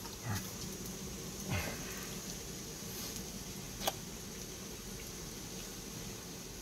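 Water boiling steadily in a steel stockpot, with faint sloshing as a raw chicken leg quarter is dipped in to blanch the skin. A single sharp click about four seconds in.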